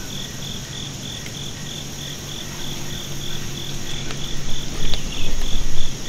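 Insects calling: a high chirp repeats steadily about three times a second over a constant high-pitched insect chorus. A low rumbling noise builds over the last two seconds.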